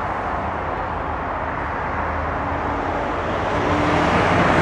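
Power liftgate on a 2011 Chevrolet Tahoe opening under its motor, heard under a steady rushing noise that grows louder toward the end, with a faint hum coming and going from about halfway.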